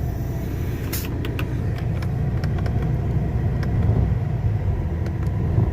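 Truck's diesel engine idling, heard from inside the cab as a steady low rumble. The revs do not rise when throttle is added, in a truck gone cold in deep frost. A few light clicks sound about a second in.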